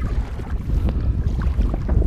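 Wind buffeting the microphone: a dense, uneven low rumble, with a few faint ticks over it.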